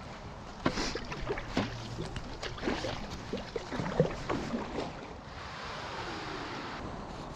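Paddle strokes on an inflatable stand-up paddle board, with splashes and knocks of the paddle. About five seconds in, a steady hiss as the board runs up onto the snowy, icy bank.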